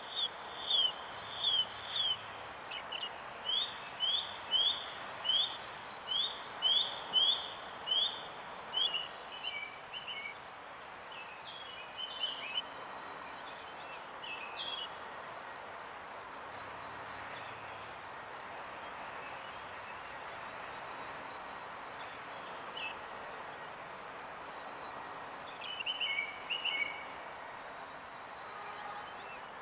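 Outdoor nature ambience: a steady, high, pulsing insect trill over a background hiss, with short falling bird chirps repeated at an even pace for the first eight seconds or so, then only scattered chirps.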